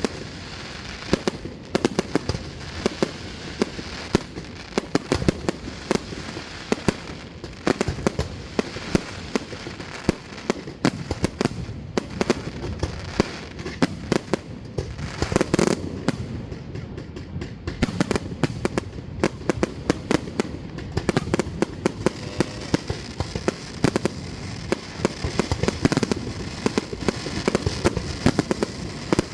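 Fireworks display: shells bursting in a dense, irregular string of sharp bangs and crackles, with a bigger, longer boom about halfway through.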